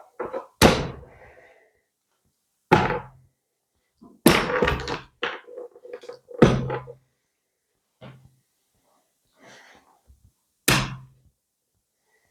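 A series of hard knocks and thunks, about six of them at irregular intervals, some with a brief ringing after the hit.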